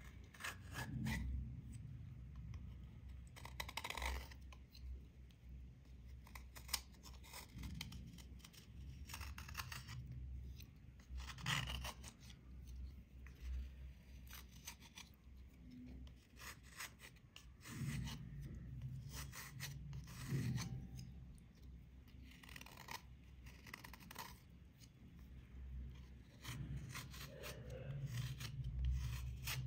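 Small serrated blade scraping a dried black coating off a rubber sole: faint, irregular scratchy strokes with short pauses between, as the crust flakes away.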